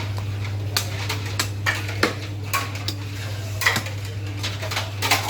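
Irregular clinks and knocks of metal utensils and knives being handled, over a steady low hum.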